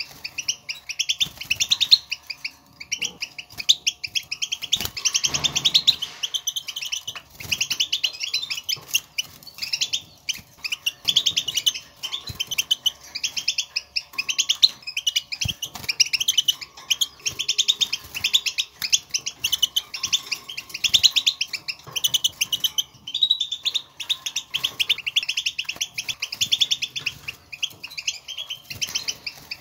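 European goldfinches giving their wild twittering 'batbata' calls, a continuous run of rapid, high chirping phrases: the chatter goldfinches use in the wild to call to one another.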